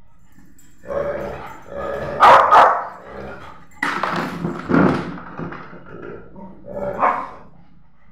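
Two beagles scuffling with each other, giving bursts of growling and barking with short pauses between. The loudest burst comes a little over two seconds in.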